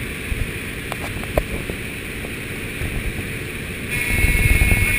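Propeller plane's engine running steadily, with wind rushing past the open jump door. About four seconds in, the noise gets louder and a steady higher tone joins in.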